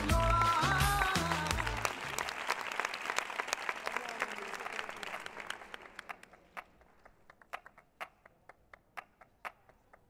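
Pop music with a heavy beat ends about two seconds in, over an audience applauding. The applause thins out over the next few seconds into scattered single claps.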